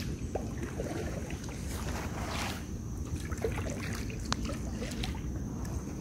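A kayak being backed up on still river water: a steady low wind rumble on the microphone, with a few faint paddle splashes and knocks. A thin steady high tone sits in the background.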